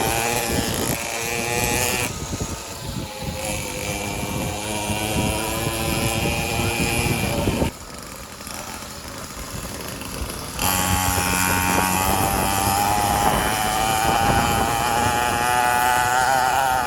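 50cc mini moto engine running at changing throttle with a high, buzzing note. The engine sound drops away abruptly about eight seconds in and comes back loud about three seconds later.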